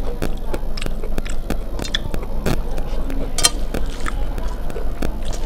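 Fingers squishing rice and dal together on a steel plate, with many short wet clicks and ticks, one sharper than the rest about three and a half seconds in. Close-miked chewing sounds mix in.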